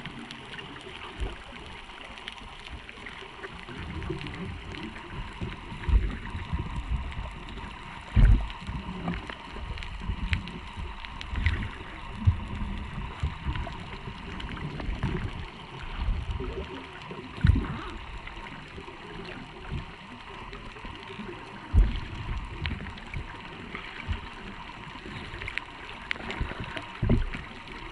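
Underwater sound through a waterproof camera housing: a steady muffled water hiss broken by irregular low thumps and knocks, about half a dozen of them sharp.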